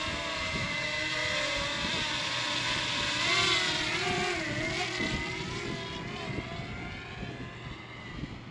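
DJI Mini 2 quadcopter drone's propellers whining overhead, the pitch wavering as it holds and adjusts its position. It is loudest about three and a half seconds in, then fades as the drone moves away.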